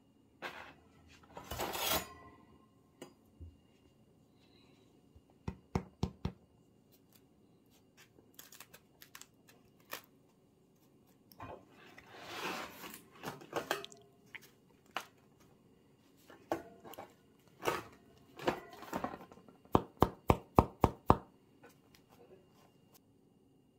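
A crusty baked boule being handled on a wire cooling rack: the crust scrapes and crackles against the rack and the hands, with scattered clicks. Near the end comes a quick run of about seven knocks on the loaf, the usual knock on the underside to hear whether the bread sounds hollow and is baked through.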